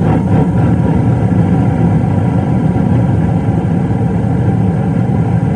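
Gas furnace burners lighting suddenly and burning with a loud, steady low rush. The burners short-cycle, shutting off after about 5 seconds, a fault the technician puts down to a flame sensor fouled with carbon deposits.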